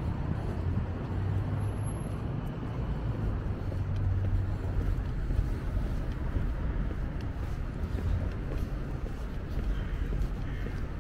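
Road traffic on a city street: a steady low noise of vehicles running, swelling slightly as vehicles pass.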